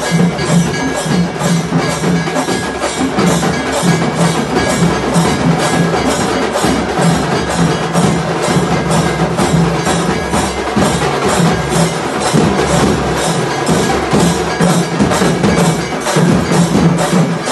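Kerala chenda melam: an ensemble of chenda drums beaten with sticks in a loud, dense, steady rhythm that runs on without a break.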